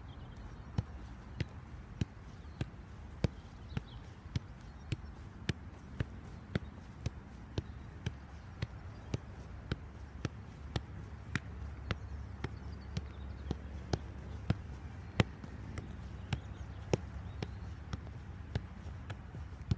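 A football being juggled with the feet in keepy-ups: evenly spaced dull kicks of the ball off the shoe, a little under two a second, over a steady low rumble.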